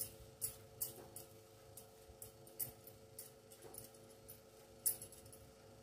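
Faint, irregular small clicks and soft rustling from hands rolling paste-covered taro leaves into a patra roll over a steel plate, with the sharpest click a little before the end. A faint steady hum runs underneath.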